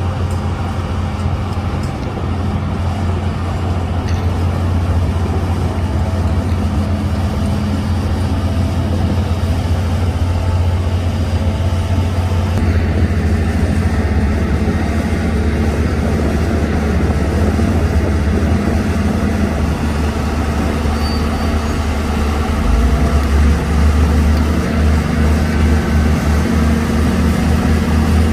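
Heavy diesel engine of earthmoving machinery running steadily with a deep drone. Its low note changes and turns uneven about three-quarters of the way through.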